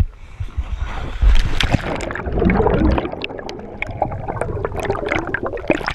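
A scuba diver's backward-roll entry from the side of an inflatable boat: a splash about a second in, then the churning rush and crackle of air bubbles heard underwater.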